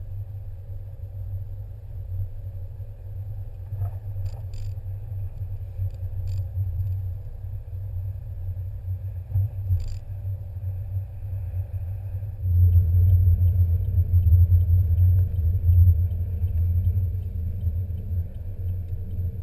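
A low, steady rumble that grows louder about twelve seconds in, with a few faint clicks.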